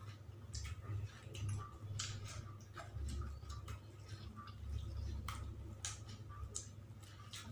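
Irregular mouth clicks and smacks of someone chewing fried chicken, several a second, over a low steady hum.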